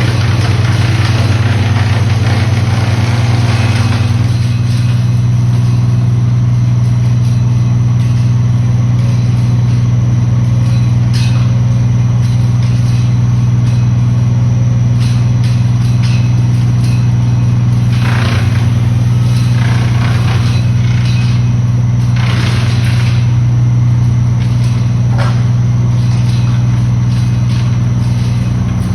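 Engine of a tree-cutting machine running at a steady, unchanging pitch. A handful of short bursts of noise come over it now and then.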